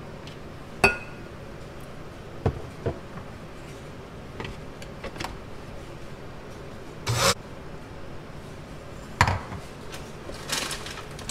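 Kitchen handling sounds: a sharp clink with a short ring about a second in, a few knocks, and brief scraping and rustling of utensils and dishes, with no blender running.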